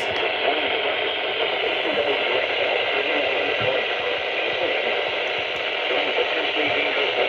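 Steady hiss of FM receiver static from a weak NOAA Weather Radio signal on a software-defined radio, with no voice or alert tone coming through.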